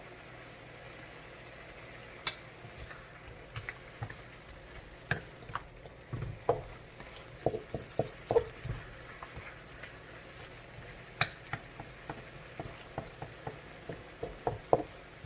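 Pork ribs with onions, garlic and ginger cooking in a pan with a faint steady sizzle, while a utensil stirs, knocking and scraping against the pan in irregular clicks.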